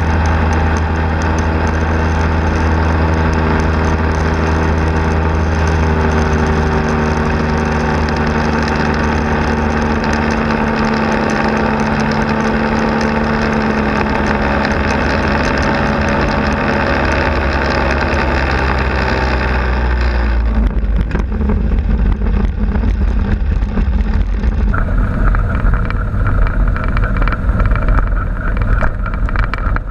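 Quicksilver Sport 2S ultralight's engine running steadily in flight. Its pitch drops about six seconds in and keeps sinking slowly, as power is pulled back on the descent. About twenty seconds in the engine note gives way abruptly to a low rumble and wind buffeting on the microphone.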